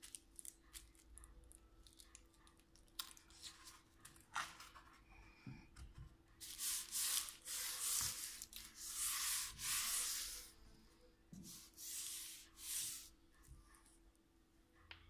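Hands rubbing and smoothing a mesh and its tape down onto a board to secure it, a few scratchy strokes each lasting about a second, the loudest in the second half.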